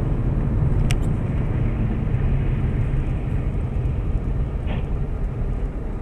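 Steady low rumble of a car's engine and tyres heard from inside the cabin while driving, with a single sharp click about a second in.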